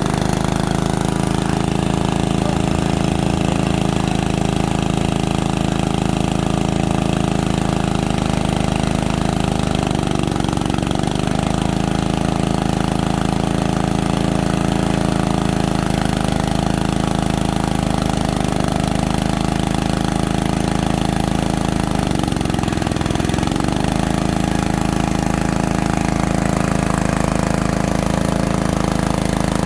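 Small engine of a core-drilling machine running steadily; its speed sags briefly twice, about a third and three quarters of the way in, and picks up again.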